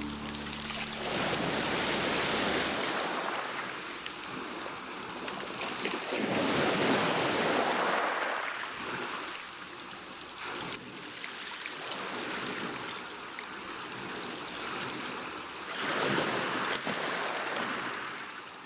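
Ocean waves breaking and washing ashore in slow swells, with three bigger surges, then dying away near the end. A few steady music tones fade out in the first second.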